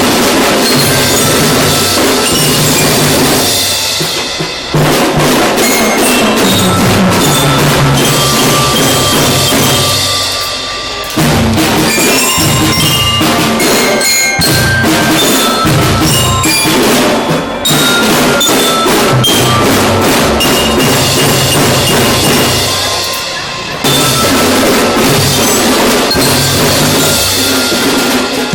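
A children's marching drum band plays a tune: bass and snare drums beat under a bell-lyre (glockenspiel) melody. The music dips briefly about every six to seven seconds, between phrases.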